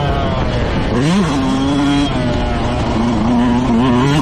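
Motocross bike engine running hard under racing throttle, with a quick rise and fall in revs about a second in, then held at fairly steady revs with small ups and downs.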